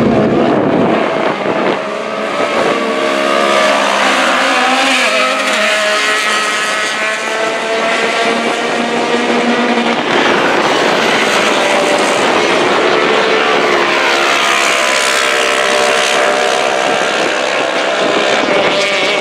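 Several side-by-side UTV race cars racing on a dirt short course. Their engines rev hard, with the pitch rising and falling as they accelerate and shift.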